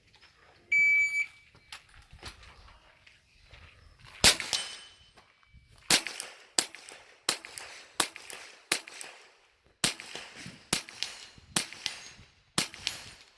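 A shot timer's start beep sounds once, about a second in. Then a CBC 7022 .22 LR semi-automatic rifle fires about ten shots at an uneven pace, with short gaps between some of them.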